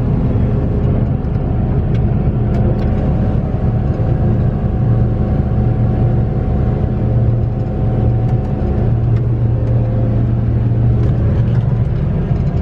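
Combine harvester's diesel engine running loud and steady at an even speed, a constant low hum with a steady pitch.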